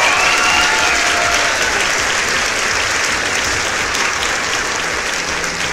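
A crowd applauding, dense steady clapping with no break.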